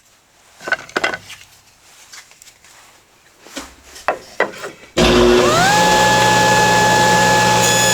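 A few light knocks of wood being handled, then about five seconds in a table saw with a dado stack switches on, its whine rising as the motor spins up and then running steadily at full speed.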